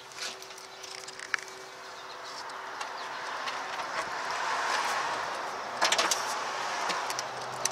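A passing vehicle's road noise swelling over a few seconds and then easing off, with a quick cluster of sharp clicks about six seconds in as a hand handles the plastic engine-computer housing.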